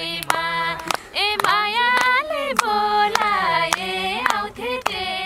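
Female voices singing a Nepali dohori folk song, held notes gliding between phrases, with hand claps keeping a steady beat about twice a second.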